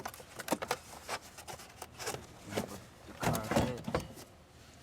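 A scatter of light clicks and knocks from car parts and tools being handled in the engine bay, with a brief murmur of voice about three seconds in.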